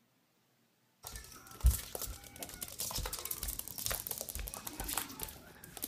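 Near silence for about a second, then a dense run of rapid clicks, crinkling and light thumps, with the loudest thump just after it starts: a small object being knocked about on a wooden floor.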